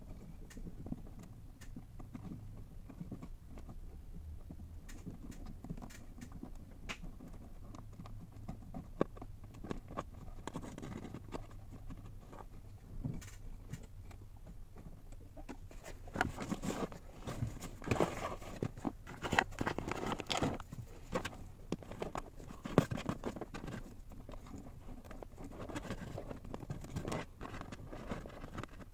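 Hands working wiring under a dashboard: scattered light clicks, taps and rustling of wires and plastic, busier and louder from about halfway on.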